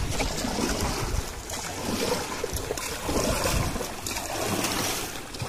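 Wind buffeting the microphone with a low rumble, over water washing around a small canoe.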